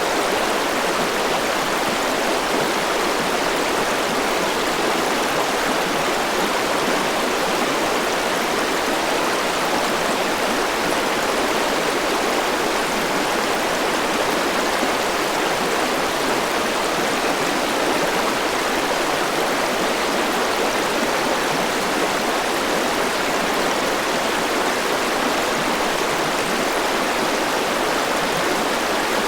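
Mountain river rushing over rocks, a steady, even wash of flowing water with no breaks or changes.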